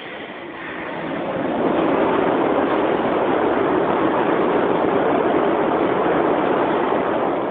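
Machinery of an automated rotary car-parking tower running as its central transfer carriage moves: a steady mechanical rushing noise that swells over the first couple of seconds and fades near the end.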